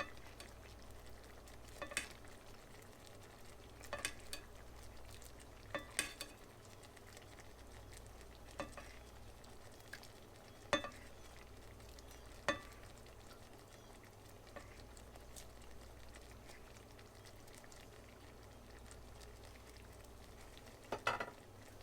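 Spoon basting chicken in a skillet of simmering garlic lemon butter sauce: faint sizzling with a sharp click of the spoon against the pan every couple of seconds.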